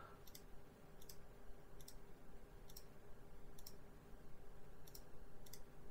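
Faint computer mouse clicks, roughly one a second, as the product-image gallery is clicked through, over a low steady hum.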